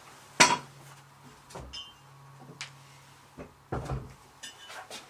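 Metal parts of a knife maker's belt grinder being handled and set down on the bench: a sharp clank about half a second in, then several lighter knocks and clinks.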